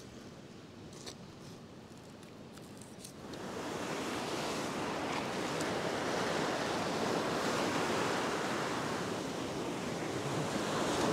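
A few faint clicks of a knife cutting pilchard bait on a plastic cutting board. Then, about three seconds in, loud surf breaking on a beach takes over, with wind on the microphone, swelling and easing as the waves come in.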